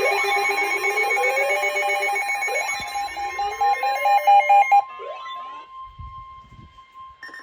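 Weather radio alert alarm: a steady single-pitch warning tone, overlaid for about the first five seconds by loud electronic beeping and rising sweeping tones, after which the steady tone goes on alone and quieter.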